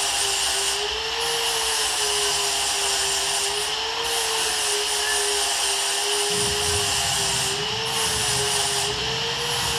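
A high-speed handheld power tool runs steadily with a high whine whose pitch wavers slightly, as metal is cut for bracket grooves. A lower rumble joins about six seconds in.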